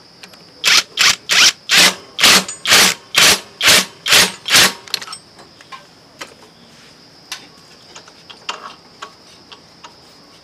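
A quick run of about ten short, loud mechanical strokes from a tool being worked on a motorbike during a clutch job, a little over two a second, stopping about five seconds in and followed by a few faint ticks.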